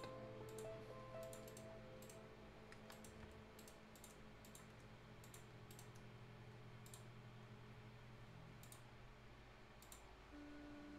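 Faint, irregular computer mouse clicks, a dozen or so scattered through, over soft background music that drops away after the first second and comes back near the end.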